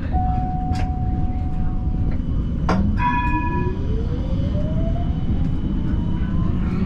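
Siemens Combino tram pulling away from a standstill: the whine of its electric traction drive rises steadily in pitch for about four seconds over a low running rumble. Before it moves, a steady beep sounds for about two seconds, and a short ringing signal tone follows just as it sets off.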